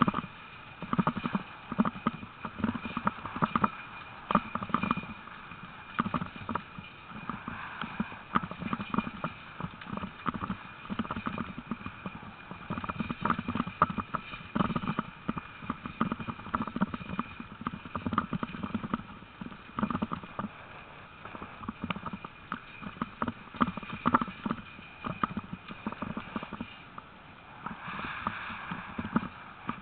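A six-dog sled-dog team running on a gravel dirt track: a fast, uneven patter of paws and crunching gravel that goes on throughout.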